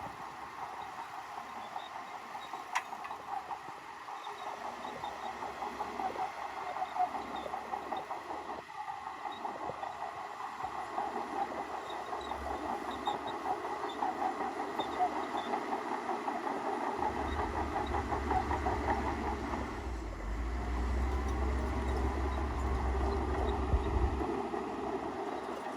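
Shantui crawler bulldozer working: diesel engine running with the rattling clank of its steel tracks. A deep low rumble joins about two-thirds of the way through.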